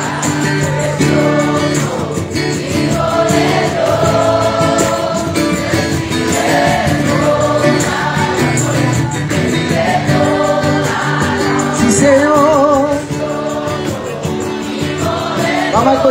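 A group of voices singing a Christian worship song over strummed acoustic guitars, with some long held notes sung with vibrato.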